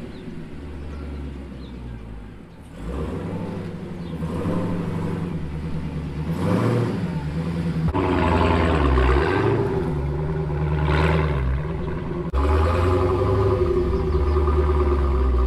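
2016 Dodge Challenger SRT Hellcat's supercharged 6.2-litre V8 running and revving, in a few short clips cut together. The engine note rises and falls several times and is loudest in the second half.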